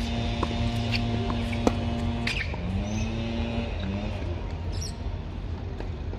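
Tennis ball struck and bouncing on an outdoor hard court: a few sharp knocks about once every second over the first two and a half seconds. Underneath runs a steady low hum and a held motor-like drone that breaks off twice.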